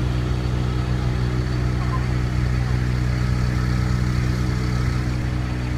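An engine running steadily at idle, a constant low hum that doesn't rise or fall.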